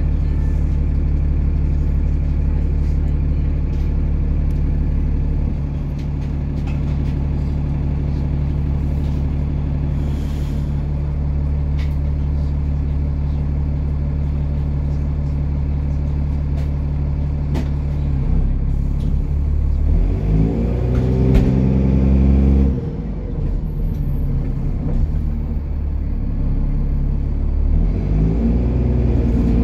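Cummins ISCe 8.3-litre diesel of a Dennis Trident 2 bus with a blowing exhaust, heard from inside the bus. It idles steadily, then revs up as the bus pulls away about twenty seconds in, drops briefly around a gear change, and climbs again near the end.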